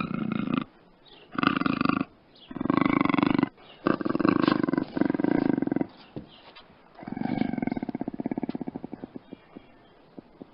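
Puma (cougar) vocalizing: four loud, harsh calls of about a second each with short pauses between them, then a longer call made of rapid pulses that fades away.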